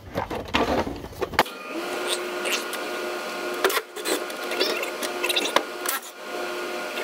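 Cordless drill-driver motor running with a steady whine, backing out the screws that hold a forklift's plastic cover panel, pausing briefly twice. A few clicks and knocks of handling come before the motor starts, about a second and a half in.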